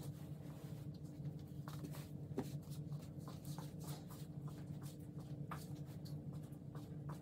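Bedsheet rustling, with scattered light taps and scratches as the bedding is handled, over a steady low hum.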